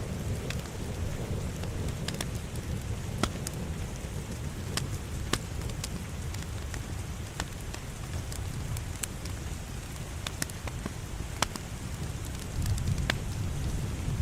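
Wood fire in a fireplace crackling: a steady low rumble of flames with scattered sharp pops, a few of them louder than the rest.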